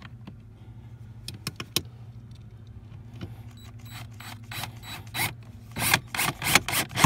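Craftsman cordless drill driving a Torx screw into plastic dash trim in a string of short trigger bursts over the last three seconds, after a few light clicks. A steady low hum runs underneath.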